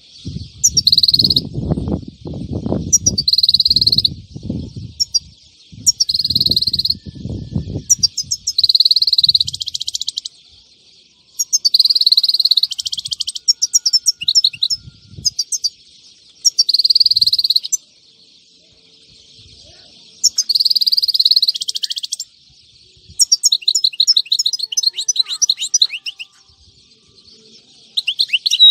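European goldfinch singing in a cage: bright twittering phrases about a second long, repeated every couple of seconds, with a longer rapid trill about two-thirds of the way through and again at the end. A low rumbling noise runs under the first few phrases.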